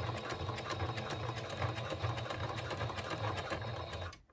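Domestic electric sewing machine running, stitching through the thick layers of a bag strap, with a rapid, even ticking of needle strokes over its motor hum. It stops suddenly about four seconds in.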